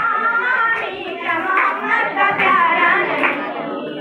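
A girl singing into a microphone, with long held notes, and hand-clapping in time with the song.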